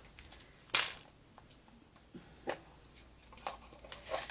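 Small toy packaging being handled: a sharp crinkle about a second in, then a few fainter rustles and clicks.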